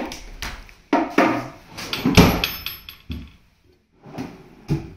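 Wooden drawers of a dressing unit being slid open and pushed shut on their runners, a series of sliding rumbles and knocks. The loudest comes about two seconds in, with a sharp knock near the end.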